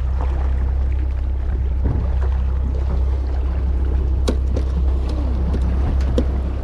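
Fishing charter boat's engine idling with a steady low hum, with a couple of sharp clicks or knocks on deck, one about four seconds in and one near the end.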